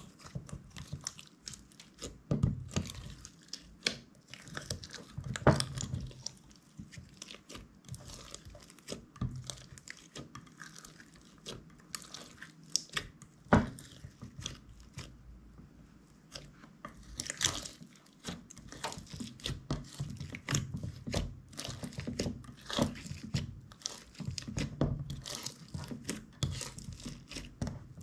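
Clear slime being kneaded and mixed by hand, with irregular sticky crackles and pops throughout and one sharper pop about halfway through.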